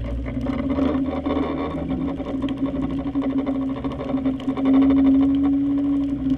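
Steady low machinery hum carried through the water from an offshore production platform, picked up through a GoPro's underwater housing. It swells louder for a second or so about two thirds of the way in.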